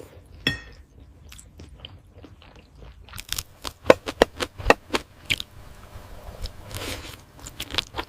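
Close-up chewing of spicy octopus: wet, crunchy mouth clicks and smacks. A burst of sharp, loud clicks comes from about three to five and a half seconds in.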